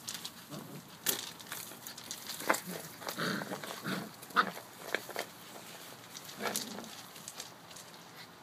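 Australian Shepherd puppies play-fighting: a string of short puppy growls and yips, with scuffling and clicks from paws in leaves and gravel.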